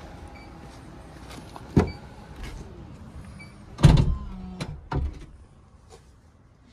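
Car doors shutting with solid thuds, the second one louder, followed by a short electric motor hum and a further thud.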